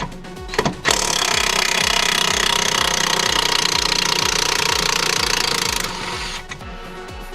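Power impact wrench running in one continuous burst of about five seconds, starting about a second in and stopping abruptly, working a nut on the car's suspension.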